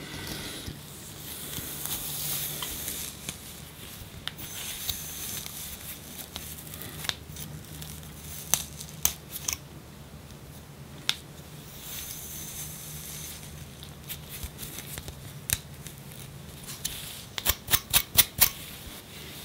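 Dandruff flakes of seborrheic dermatitis being scratched and lifted off the scalp: stretches of dry scraping broken by sharp clicks, with a quick run of about six clicks near the end. A low steady hum runs underneath.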